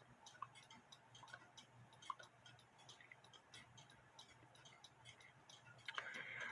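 Near silence, with faint ticking from a clock in the room.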